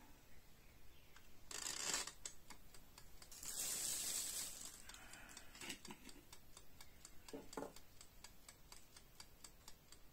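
Plastic bag rustling in two short bursts, followed by a steady light ticking at about two or three ticks a second.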